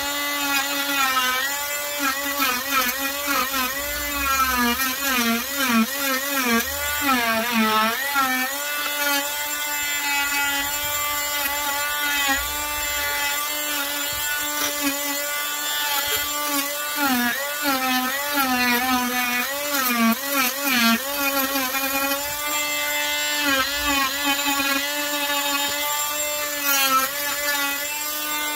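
Wesco oscillating multi-tool running and carving into wood, a steady motor whine whose pitch repeatedly dips and recovers as the blade cuts.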